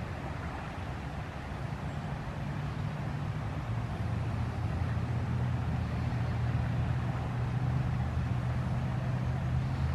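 A distant engine's low, steady drone that grows louder about four seconds in, over a constant rushing hiss.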